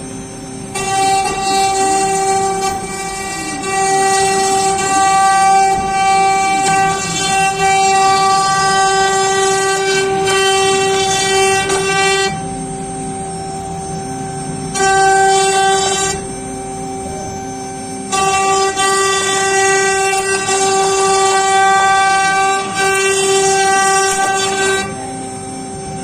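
CNC router spindle running with a steady high whine, joined by a louder, pitch-rich cutting sound in long stretches as the bit cuts into the wood panel. The cutting sound drops out twice past the middle and again near the end.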